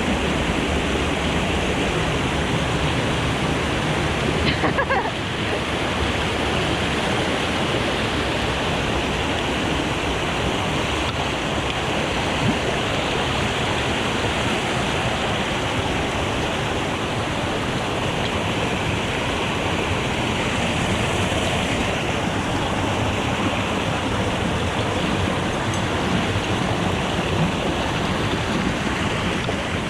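Mountain stream rushing and splashing over rocks: a steady, loud roar of water. About five seconds in, a brief falling sound rises above it.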